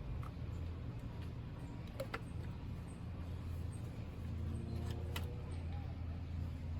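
Steady low hum with a few light clicks as ignition coils are handled and fitted into the engine; two clicks about two seconds in and two more near five seconds in.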